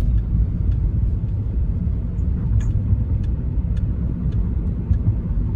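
Steady low rumble of a moving car, with a few faint ticks.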